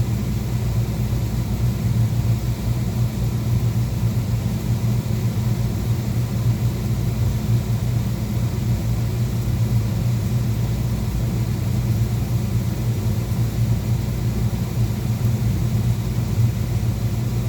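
Beckett oil burner on a Miller furnace running steadily: an even low rumble of the burner's blower motor and oil flame, with no cutout.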